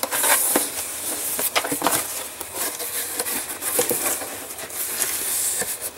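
Cardboard box flaps being opened and handled by hand, with the plastic blister packs and bags inside rustling and crinkling: an uneven run of scrapes, rustles and sharp clicks.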